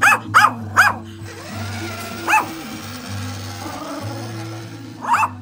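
A dog barking in short, sharp barks: three quick ones at the start, one about two seconds in and one near the end, over background music with a steady bass line.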